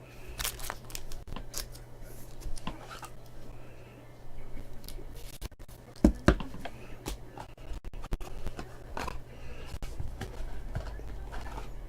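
Trading card packs being handled and opened by hand: scattered scratchy rustles, scrapes and small clicks of wrappers and cards, with a steady low hum underneath.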